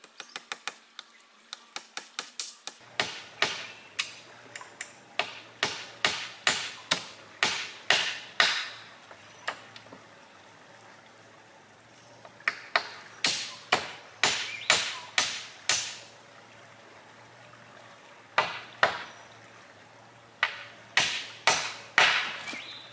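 Repeated sharp blows of a hand tool striking wood. A fast run of light strikes gives way to heavier strikes about two a second, in bouts broken by short pauses.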